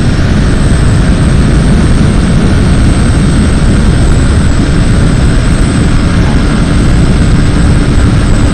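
Bajaj Pulsar NS125 motorcycle at full speed, about 100 km/h: loud, steady wind rush on the microphone over the single-cylinder engine held at high revs. A faint steady hum comes in about halfway through.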